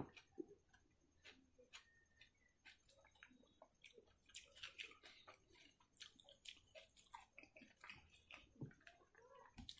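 Close-up wet chewing and mouth smacking of a person eating, with soft squelches of fingers mixing rice on a plate; a sharp knock right at the start.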